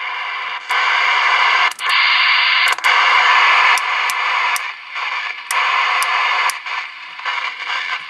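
Mobile radio transceiver's speaker hissing with receiver static, broken by a sharp click about once a second, the level of the hiss jumping up or down at each click. The static shows the receiver is powered and working again after a new protection diode and inline fuse replaced those blown by reversed power polarity.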